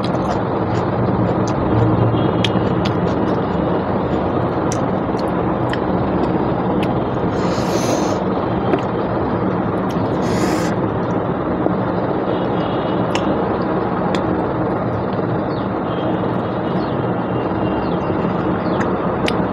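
A steady, loud drone with a low hum runs throughout. Over it come small sharp clicks and smacks of someone eating rice and mutton by hand, and two brief hissing sounds, at about 8 and 10 seconds in.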